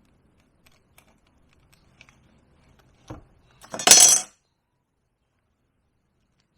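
Hand rivet nut tool being squeezed: a few faint metal clicks, a short thud about three seconds in, then one loud, sharp metallic crunch about four seconds in as the rivet nut sets and cuts into the thin sheet metal.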